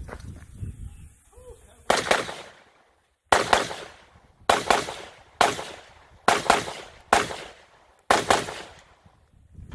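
Seven gunshots fired at a steady pace of about one a second, starting about two seconds in.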